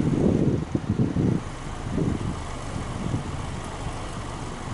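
Exhaust of a Subaru Legacy Touring Wagon's 2.5-litre EJ25 flat-four, free-revved at the tailpipe. There are a few uneven blips in the first second and a half and one smaller one around two seconds in, then it settles back to a steady idle.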